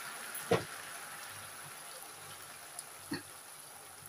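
Spaghetti stir-fry with prawns and vegetables sizzling gently in a frying pan, a steady soft hiss. Two short sounds stand out, the louder about half a second in and a fainter one about three seconds in.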